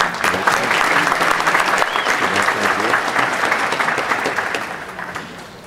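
Audience applauding, a dense patter of many hands clapping that fades out over the last second or so.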